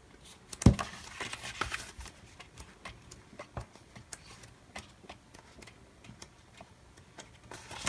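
Stiff paper pages of a sticker book being turned by hand: rustling, with a series of light ticks and flaps as the sheets fall over, the loudest snap a little under a second in.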